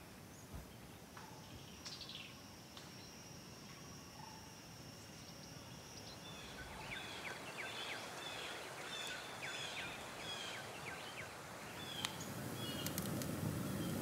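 Forest ambience: a steady outdoor hiss with a thin, high insect-like tone for the first few seconds, then a run of short falling bird chirps, about two a second, in the middle, growing a little louder toward the end.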